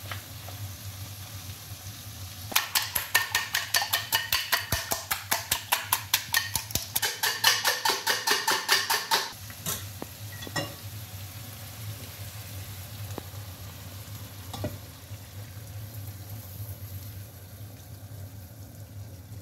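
Chicken frying in a pan with a steady sizzle, while a fork beats eggs in a bowl: a fast, even clicking of about six strokes a second for roughly seven seconds, the loudest sound here. The beaten eggs then go into the hot pan, with a few light knocks of utensils.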